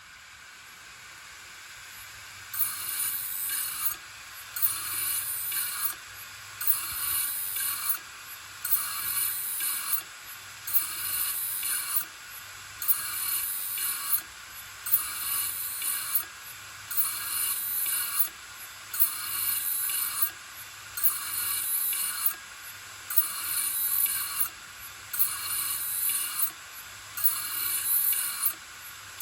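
Failed Toshiba 3.5-inch desktop hard drive, lid off. A rising hum runs for the first couple of seconds, then the head actuator seeks over and over: bursts of rapid clicking and clunking come about every two seconds. This is the drive failing to find its data after a mechanical failure.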